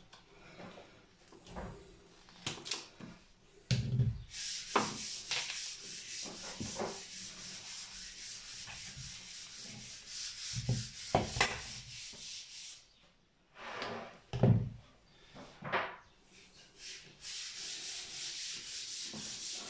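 Rapid, even scraping or rubbing strokes that run for several seconds, stop for a few seconds, then start again near the end. A few sharp knocks and clicks of handled tools and wires come in between.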